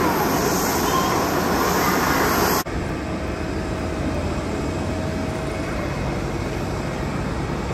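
Steady airport apron din: a broad rush with a low rumble. It changes abruptly about two and a half seconds in to a slightly quieter rush with a steady mid-pitched hum running through it.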